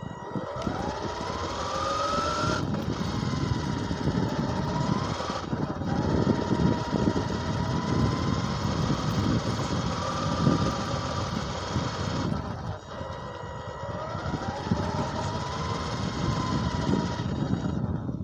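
RC car driving: its motor whine rises and falls with the throttle over a rough rumbling noise from the chassis and tyres on the ground. It stops near the end.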